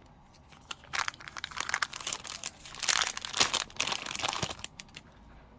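Packaging crinkling and crackling as it is handled, starting about a second in and stopping shortly before the end.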